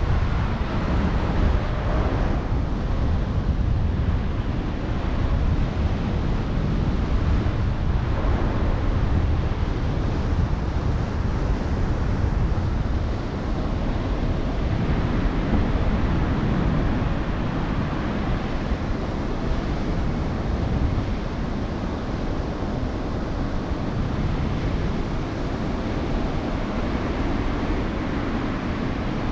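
Wind rushing over the microphone of a camera flying with a paraglider: a steady, dense rush of airflow, heaviest in the lows, swelling and easing slightly.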